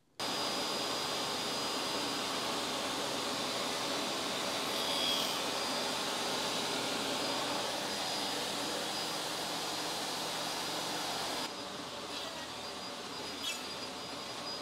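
Jobsite table saw running with a steady motor whine. About eleven seconds in it drops to a quieter steady run.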